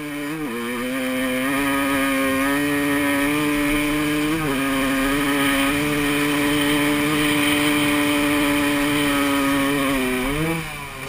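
Dirt bike engine running at a steady high pitch under load as the bike rides up sand dunes, with a brief blip about four seconds in; near the end the revs drop, then rise again.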